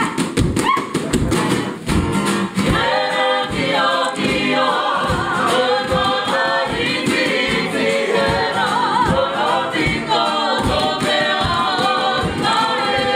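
Māori group singing, the women's voices leading in unison, a waiata performed with poi. The poi balls strike the performers' hands and bodies in a steady rhythm of sharp taps, about three a second.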